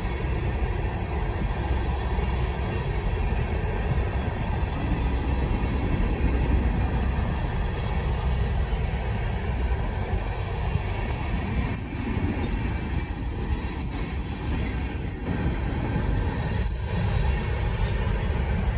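Herzog ballast hopper cars of a CSX freight train rolling past: a steady low rumble of steel wheels on the rails.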